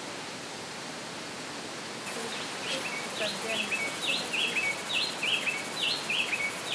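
A steady rushing noise for about two seconds, then a Henicorhina wood-wren singing: a quick run of short, clear whistled notes, several a second, that carries on to the end.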